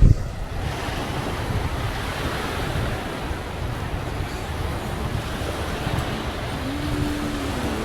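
Waves breaking on a beach, a steady rush of surf with wind on the microphone, and a brief low thump at the very start. A few held musical notes come in near the end.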